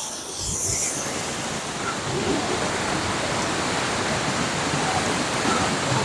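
Tall waterfall in full monsoon flow falling into its plunge pool, heard close up: a steady, even rush of water.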